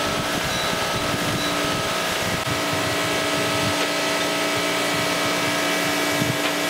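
Surface grinder running, a steady machine hum made of several fixed tones over an even rush, while the table carries the vise base back and forth under the spinning wheel.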